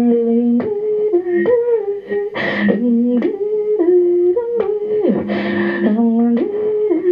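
Experimental live noise music: vocal sounds made into a handheld microphone and run through electronics, held tones that jump abruptly between a few pitches, broken by sharp clicks and two breathy hissing bursts, about two and a half seconds and five seconds in.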